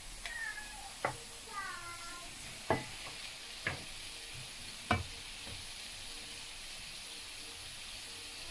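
Sliced potatoes sizzling in olive oil in a nonstick frying pan. They are turned with a wooden spatula and a metal spatula that knock sharply against the pan about four times.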